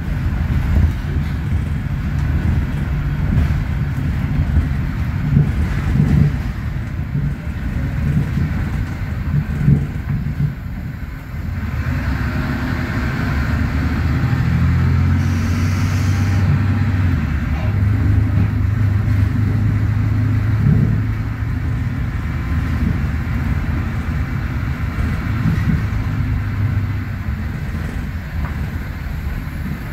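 Mercedes-Benz OM936 six-cylinder diesel of a city bus with a Voith automatic gearbox, heard from inside the cabin, pulling uphill. For the first ten seconds or so the engine rumble is mixed with knocks and rattles from the bus body. From about twelve seconds in the engine drone comes through louder and steadier.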